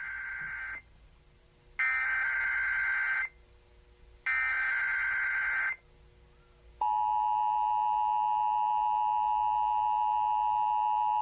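Emergency Alert System header: three raspy, warbling data bursts, each about a second and a half long with a second's gap between them, the first already under way. About seven seconds in, the steady, harsh EAS two-tone attention signal starts.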